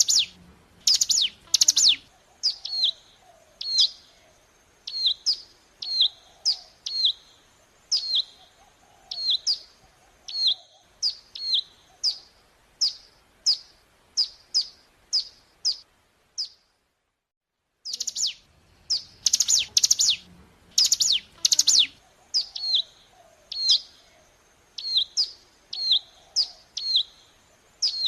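Mountain prinia (ciblek gunung) calling: a steady series of sharp, high chirps, each sliding down in pitch, about two a second, with louder clusters of quick calls at the start and again past the middle. The sound cuts out completely for about a second and a half a little after the middle.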